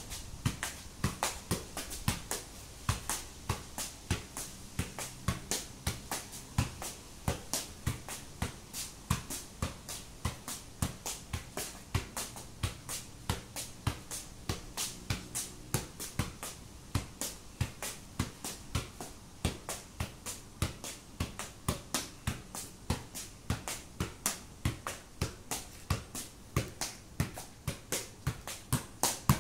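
A football being juggled keepy-uppy: a steady run of even taps as foot and thigh strike the ball, about two to three touches a second, with no break.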